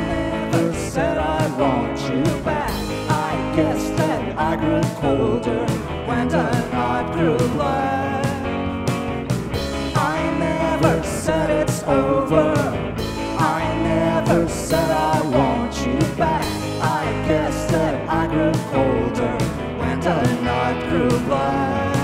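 Indie rock band playing live: electric guitars and a drum kit keeping a steady beat, with sung vocals over the top.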